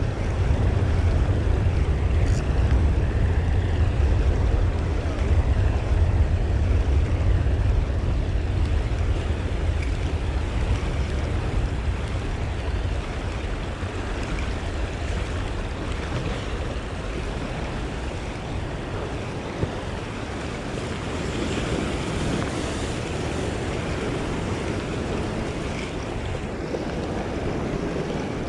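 Sea surging and washing against a rock ledge, with wind buffeting the microphone; the low wind rumble is heavier in the first half and eases later.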